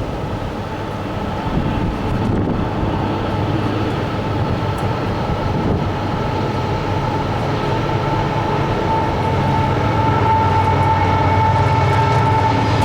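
Union Pacific GE AC4400CW diesel locomotives approaching at the head of a freight train, their engine rumble building steadily. A steady high whine grows stronger in the second half.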